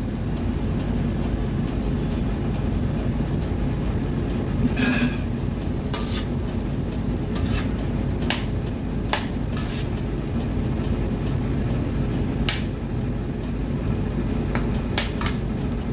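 A metal spoon stirring prawns in a frying pan, clinking sharply against the pan about nine times in the second half. Under it the food sizzles, over a steady low hum.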